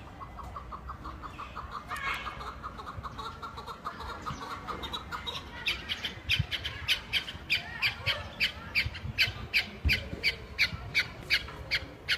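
Chukar partridge calling: a quick run of low clucking notes, then a louder string of sharp, evenly repeated calls at about three a second.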